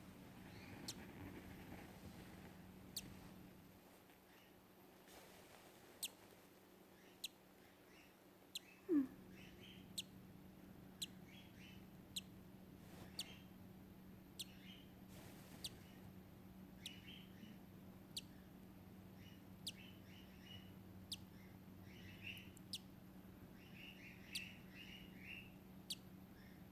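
Faint high peeping of a hatching lutino cockatiel chick, short chirps coming in little clusters, over sharp ticks at a steady pace of about one a second. A brief louder rising squeak about nine seconds in.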